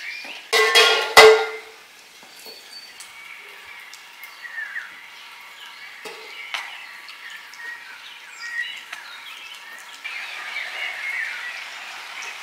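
A large metal basin clangs and rings, twice about half a second to a second and a half in, the second stroke the louder. Then come light clinks of handling and a few bird chirps.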